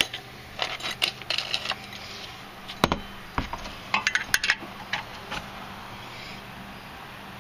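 Scattered metallic clicks and clinks of a 17 mm wrench on the engine's oil drain plug as the plug is put back into the oil pan and snugged up.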